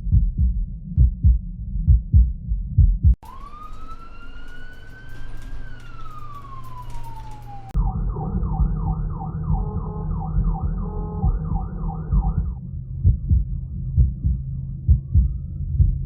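Heartbeat heard through a digital stethoscope as a regular run of low thumps. About three seconds in it is cut over by a siren: one long wail that rises and then falls, during which the heartbeat mostly drops away. Then comes a fast yelping warble with the heartbeat beneath it, and near the end the heartbeat carries on alone.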